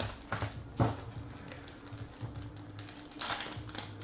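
Foil trading-card pack wrapper crinkling and crackling in the hands as it is handled and pinched to tear open, an irregular run of crisp crackles that is busiest about three seconds in.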